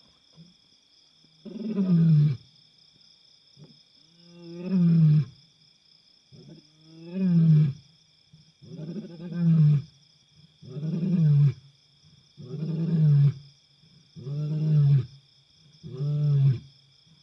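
African lion roaring: three long, deep moaning roars, then a run of five shorter grunting roars about every two seconds.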